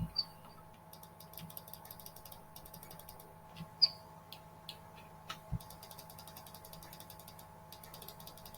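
Computer mouse scroll wheel ticking in fast runs, with a few single mouse clicks, over a faint steady hum.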